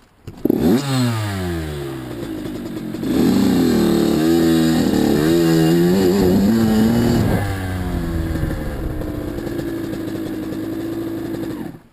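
Kawasaki KX85 two-stroke dirt bike engine pulling away, its pitch climbing over the first couple of seconds after a sharp burst at the start. The throttle then rises and falls while riding, loudest in the middle, before the engine settles to a steadier, lower note and cuts off suddenly near the end.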